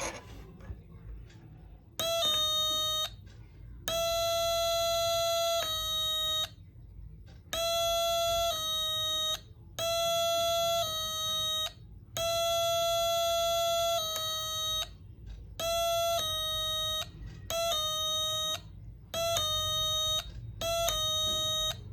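Homemade transistor doorbell circuit sounding through a small speaker, pressed about ten times: each press gives a buzzy electronic two-note chime lasting one to two seconds, its pitch stepping partway through.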